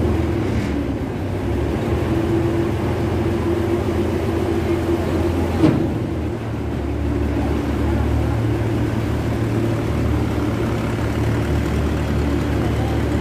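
A river ferry's engine runs at a steady drone. There is a single brief knock about halfway through.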